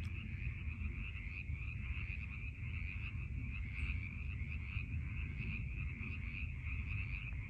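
A chorus of frogs calling: many overlapping trilling calls that blend into a steady, unbroken chorus, with a low rumble underneath.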